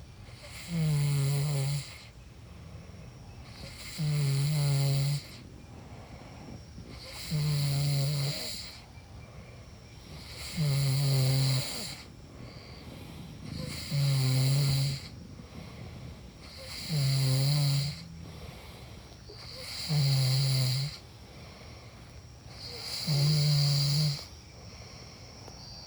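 A person snoring in a steady rhythm: eight buzzing snores, each about a second long, roughly one every three seconds, with a faint background hiss between them.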